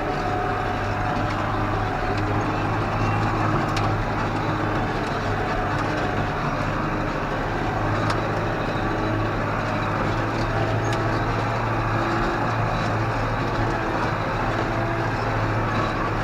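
Tractor engine running steadily at working speed with a low, even drone while pulling a field roller, with a few faint clicks.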